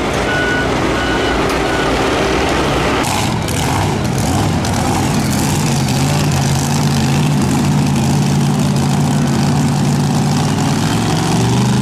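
Heavy diesel engines running steadily: first an International light pro stock pulling tractor idling, with a few short electronic beeps, then after a sudden change about three seconds in, a Bobcat compact track loader's engine running close by.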